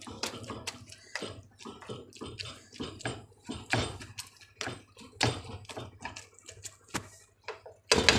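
Spatula tapping and scraping on a tawa while mashing and stirring scrambled egg and tomato, in irregular strokes about three a second, with a louder clatter near the end.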